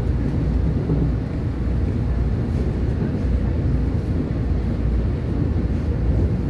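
Steady low rumble of a Taiwan Railway EMU1200 electric multiple unit running at speed, heard from inside the passenger car.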